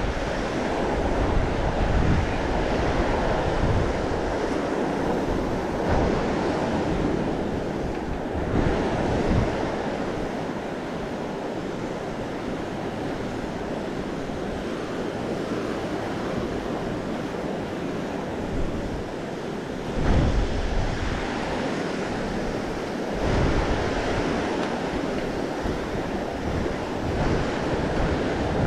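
Ocean surf washing steadily on the beach, with wind buffeting the microphone in uneven gusts.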